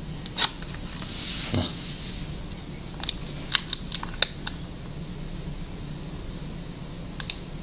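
Light clicks and taps of two small ashtrays being picked up and handled, one of them a cast epoxy-resin copy. A cluster of clicks comes about three to four and a half seconds in, with a few single clicks before and after, over a steady low hum.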